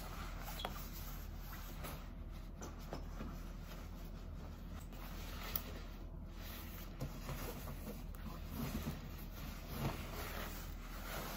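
Rustling of a nylon puffer vest being pulled on, then a nylon backpack being lifted and handled near the end, with a few light clicks, over a steady low hum.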